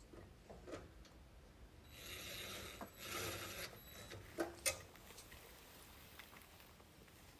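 Hand work on the microwave's metal parts during a magnetron replacement: two short rasping scrapes, then two sharp clicks, like tools or metal parts being handled and fitted.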